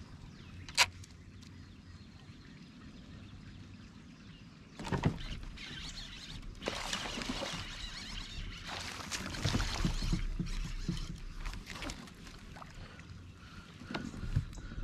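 Water sloshing and splashing around a fishing kayak, louder from about five seconds in until about eleven seconds, with a single sharp click about a second in.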